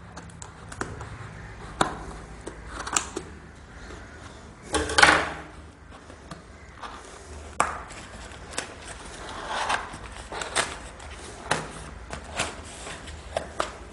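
Cardboard shipping box being opened: scissors cut through its packing tape, then the flaps are pulled and handled. The sound is a run of irregular clicks, scrapes and rustles, with one louder scraping rasp about five seconds in.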